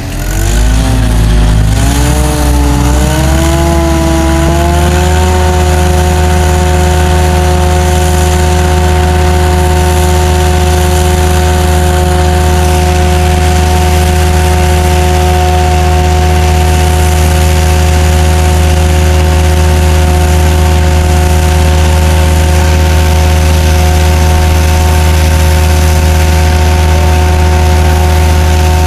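Jet-vac unit running its water jetter and vacuum at the same time: a loud, steady machine drone with a low hum and a whine of several tones, which wavers in pitch for the first few seconds and then settles to a constant pitch about five seconds in.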